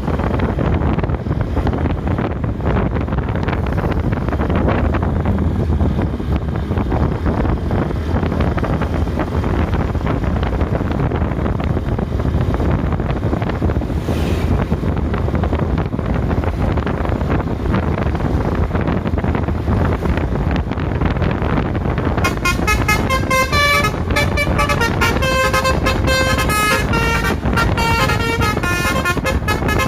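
A steady low rumble of road traffic. About three quarters of the way through, a bus's telolet horn, a multi-tone air horn, starts playing a quick tune of changing notes.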